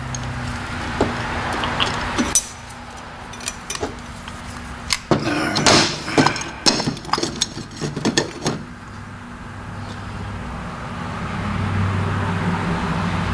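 Metal TH350 transmission parts (clutch drum and gear shells) knocking and clinking against each other and the workbench as they are handled, a run of sharp clanks from about five seconds in lasting some three seconds. A low steady hum underneath grows louder near the end.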